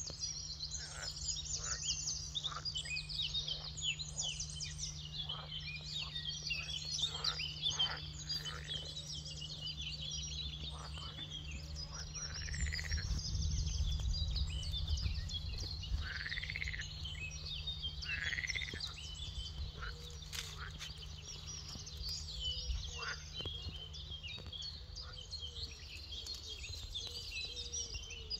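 Many songbirds singing at once, a dense chatter of high chirps and trills, with three louder arching calls in the middle. A low steady hum and rumble lie underneath.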